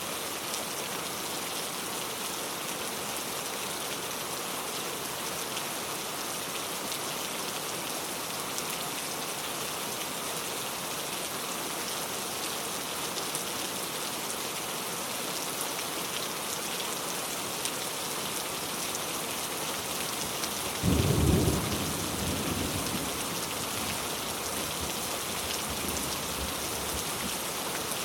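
Steady rain falling, with one clap of thunder about three-quarters of the way through that rolls away over a few seconds.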